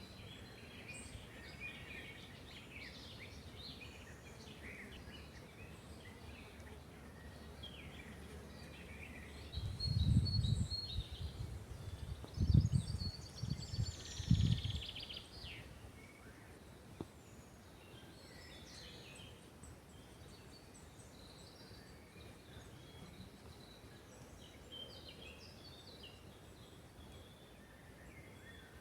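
Several small birds chirping and singing in a forest, in short scattered phrases. About a third of the way in come a few seconds of low rumbling thuds, louder than the birdsong.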